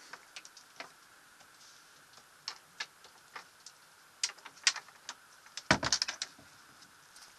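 Scattered light clicks and knocks over a low steady hiss, with a louder cluster of knocks about six seconds in.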